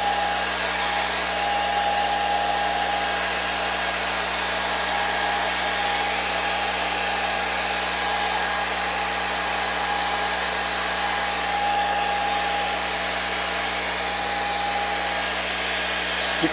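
Handheld hair dryer blowing steadily: an even rush of air with a thin steady motor whine over it.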